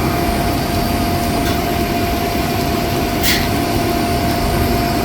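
Nitrogen-driven hydraulic service cart pump running steadily, pumping hydraulic fluid into an aircraft's center hydraulic system, with a constant whine over the running noise. A short hiss about three seconds in.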